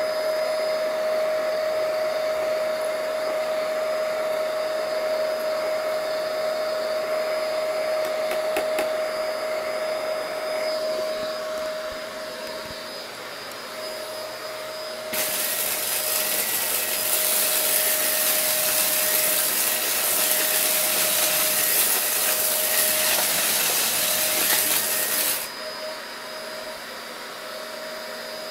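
Shark Navigator upright vacuum cleaner running with a steady motor whine. About halfway through, a much louder rushing hiss starts suddenly and cuts off sharply about ten seconds later.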